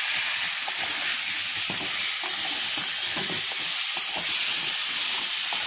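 Pieces of yam sizzling in hot oil and spice paste in a wok, a steady hiss, while being stirred with irregular short scrapes and knocks against the pan.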